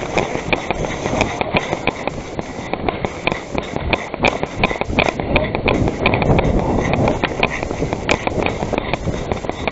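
Steady footsteps and rustling of a person on the move, with many sharp clicks scattered throughout.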